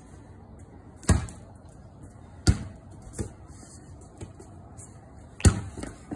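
A basketball bouncing on a concrete court: a few separate sharp slaps, loudest about a second in, at two and a half seconds and near the end, with softer bounces between.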